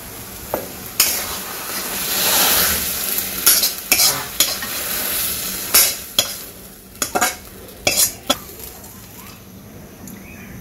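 A metal spatula scrapes and knocks against a hot pan and a steel plate as boiled taro stolons are scraped out. Steam hisses and sizzles off the pan, loudest early on, with a run of sharp clinks and knocks through the middle.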